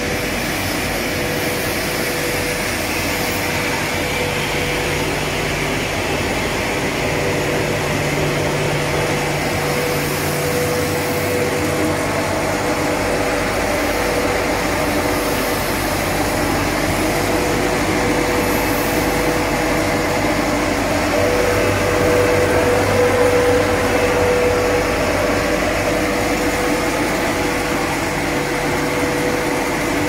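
Fish and shrimp bubble-washing machine running: a steady whine and hum from its aeration air blower, over churning water in the wash tank.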